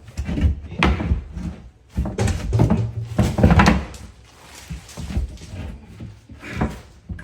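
Irregular heavy thuds and knocks from demolition work on a kitchen wall, a cluster of louder blows between about two and four seconds in.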